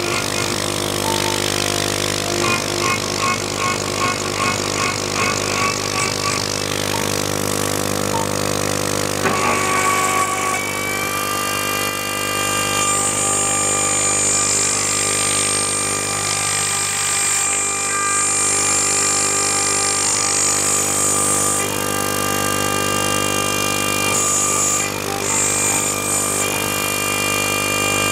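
High-speed CNC router spindle whining steadily as its TiAlN-coated end mill cuts 5 mm aluminium, with the stepper-driven axes adding tones that change as the cutter moves. The sound pulses about twice a second for the first six seconds, and the pitch pattern shifts about nine seconds in.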